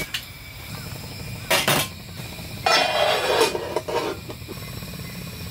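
Stainless steel cookware clanking on a camp gas burner's metal grate, then a lid scraping as it is slid onto a stainless steel steamer pot, with a couple of light clinks after it. A steady low hum runs underneath.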